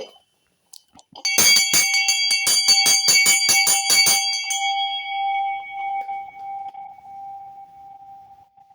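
A bell tuned to G5 rung by shaking, its clapper striking rapidly about five times a second for some three seconds, then the bell left to ring out and fade.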